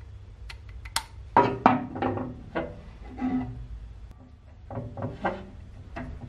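Metal parts being handled: a steel bolt and an aluminium die holder knocking and clinking, a burst of short ringing knocks about a second and a half in, then a few more near the end.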